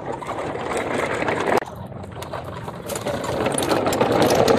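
Plastic toy trucks rolling along a rough concrete path, their wheels and bodies rattling steadily, with a short drop about one and a half seconds in before it builds again.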